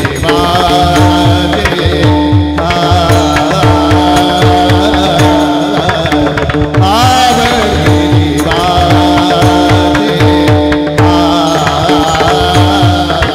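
Marathi Varkari kirtan singing: voices chanting a melody over a steady drone, with small brass hand cymbals (taal) clashing in rhythm and a drum beating steadily underneath.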